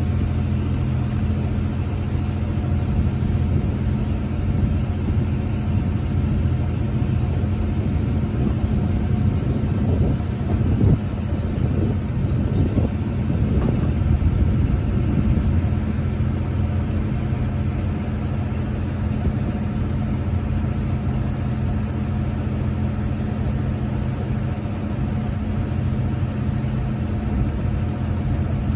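Boat engine running steadily as the boat travels along the river: a continuous low drone, a little louder for a few seconds around the middle.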